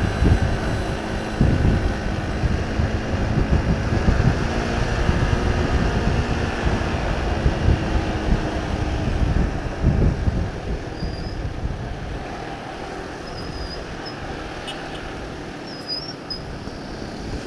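Motorcycle riding in traffic: a steady engine hum under heavy wind rumble on the microphone, easing about two-thirds of the way through.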